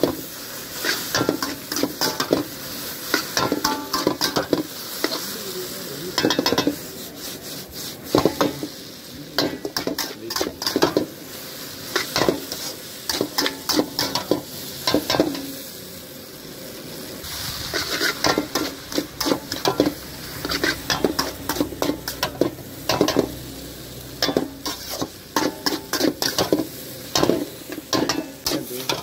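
Steel spatula scraping and clanking against a wok as noodles are tossed and stir-fried, over steady sizzling. The strokes come in quick irregular runs, with a short pause about halfway through.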